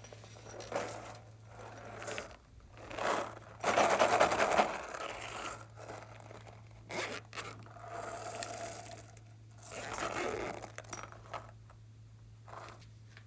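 Handling noise from a silicone pop-it toy and plastic containers on a wooden table: a series of irregular scrapes and knocks, loudest about four seconds in, over a steady low hum.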